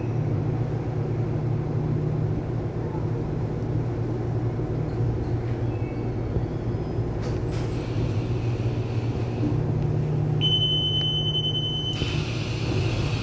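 Taiwan Railway commuter electric multiple unit running, heard from inside the car by the door: a steady low hum with rolling noise. Near the end a steady high tone sounds for about a second and a half, then changes to a brighter hiss.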